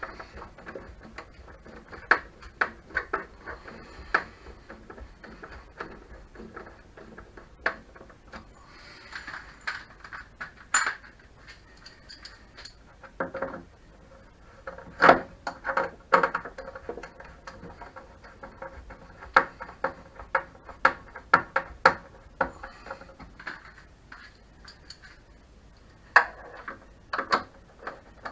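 Screwdriver and screws clicking and tapping against the plastic casing of a Tacx Flux smart trainer as its long cover screws are undone: irregular sharp clicks and small knocks, with a few louder knocks in the middle.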